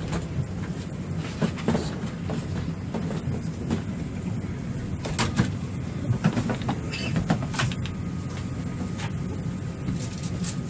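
Steady low hum of an airliner cabin's air system while the plane sits at the gate, with scattered clicks and knocks on top, the loudest a little past the middle.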